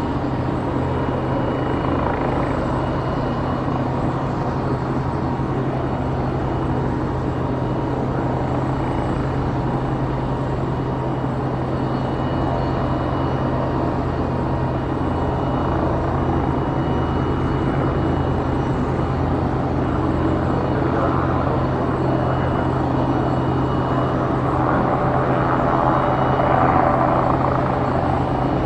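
Steady aircraft machinery drone: a constant low hum with a faint high whine over it, getting a little louder near the end.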